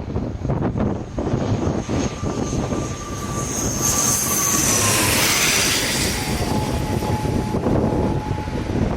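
Jet airliner on landing approach passing close by: the engine noise swells to its loudest about four to six seconds in, and its whine falls in pitch as the plane goes past.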